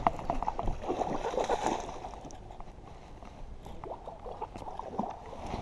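Water splashing and sloshing beside a kayak as a hooked largemouth bass is played at the surface, with small clicks and knocks mixed in. It is busiest in the first two seconds, quieter through the middle, and picks up again near the end.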